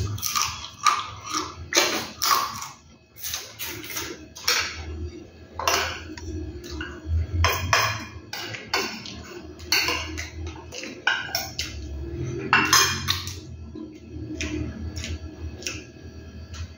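Metal spoon scraping and clinking irregularly against a glass plate while someone eats, with chewing.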